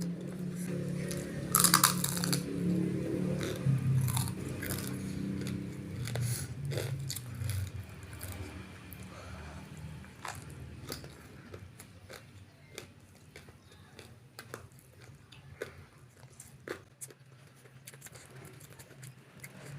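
Close-miked chewing and crunching of crisp food, with a loud crunchy bite about two seconds in, then many quieter chewing clicks. A low hum sits under the first half.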